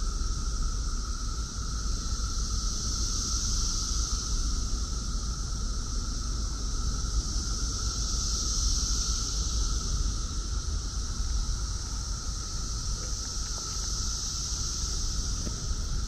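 Chorus of Brood X periodical cicadas: a steady, high, droning buzz that swells and fades in slow waves, with a lower steady drone beneath it. A low rumble of wind on the microphone runs underneath.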